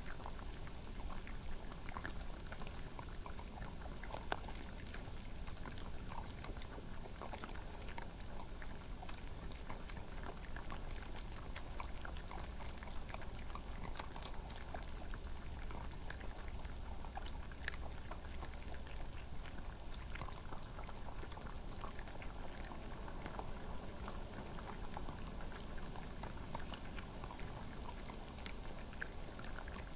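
European badgers and red foxes crunching peanuts: a steady scatter of small crunches and clicks as they chew, over a constant background hiss.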